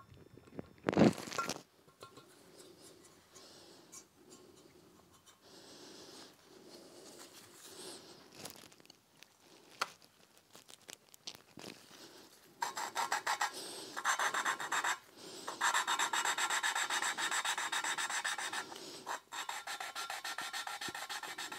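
A valve being hand-lapped into its seat on a Honda F20C cylinder head: a suction lapping stick is spun rapidly back and forth between the palms, grinding the valve face against the seat in fine cutting paste with a fast, even rasp. The grinding starts about halfway in, after quieter handling, and sounds smooth, the sign the seat is nearly lapped in.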